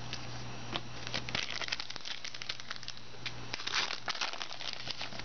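Plastic wrapper of a trading-card pack crinkling as it is handled and torn open: a run of small crackles, with a louder crinkle a little past halfway.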